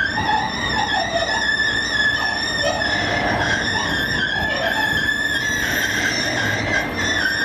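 A military hooklift truck's hook arm working a flatrack loaded with a tank container, with a continuous high-pitched squeal that wavers slightly in pitch over a low rumble.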